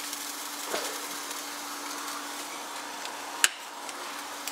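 Steady low hum and soft hiss of a kitchen, with two light knocks, the second sharp, as a stick blender is handled in a steel pot before it is switched on.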